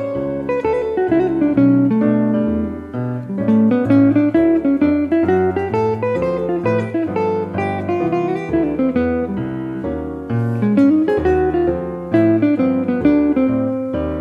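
Background music on guitar: a melody of plucked notes moving over changing bass notes.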